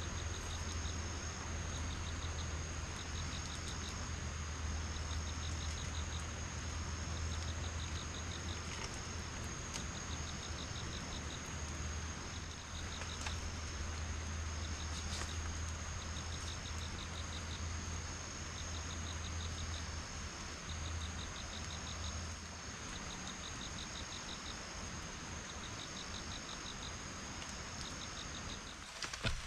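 Insects calling in the forest: a steady high-pitched drone with short pulsed chirp trains repeating about once a second, over an even background hiss. A low hum under it stops about three quarters of the way through.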